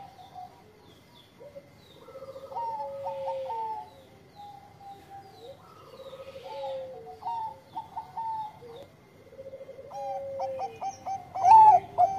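Bangkok-line zebra dove (perkutut) cooing: three song phrases, each a soft rolling start followed by a few higher, clipped notes. The last phrase, near the end, is the loudest.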